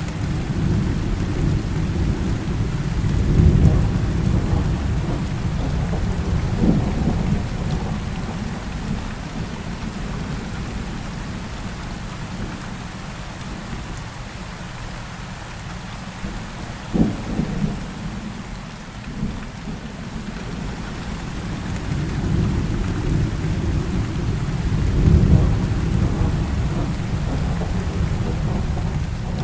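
Heavy rain falling steadily with rolling thunder: a long low rumble swells in the first few seconds and fades, a sharp crack comes a little past halfway, and a second long rumble builds near the end.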